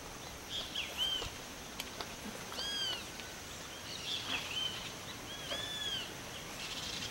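A bird calling: short, arching whistled notes repeated every second or two, over a steady outdoor hiss.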